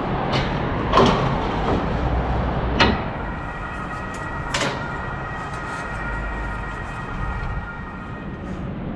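Metal scaffolding clanking as someone climbs it: three sharp knocks of hands or shoes on the poles, the first about a second in, over a steady low rumble. A faint steady whine comes in after about three seconds.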